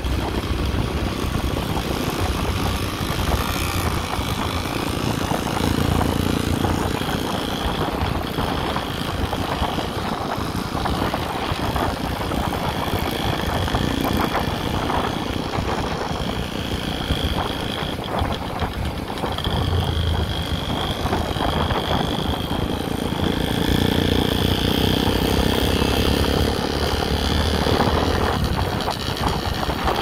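Motorcycle engine running steadily while riding, heard from on the bike, with a continuous rush of wind and road noise.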